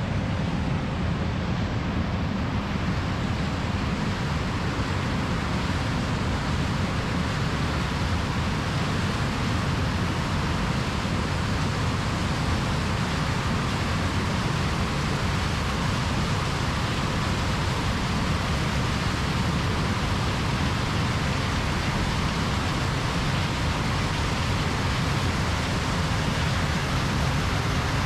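Heavy harvest machinery running steadily in a corn field: a constant low engine drone under an even rushing noise, with no change in load.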